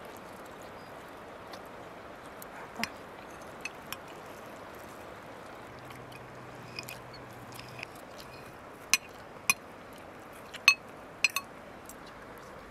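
Metal spoons and forks clinking and scraping against ceramic plates as people eat: scattered sharp clinks, sparse at first and coming more often and louder in the second half, over a steady background hiss.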